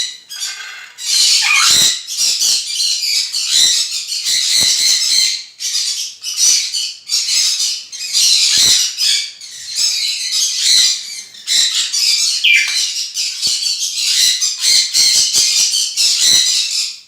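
A flock of caged conures squawking, with harsh calls that overlap almost without a break and only a few short lulls.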